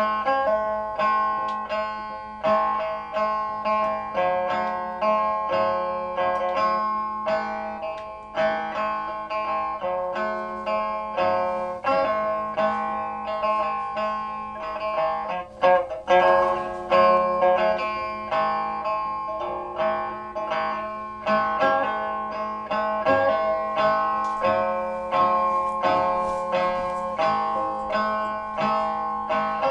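Instrumental music on a plucked string instrument: a continuous run of plucked notes, each struck sharply and left to ring and fade, over a steady low drone.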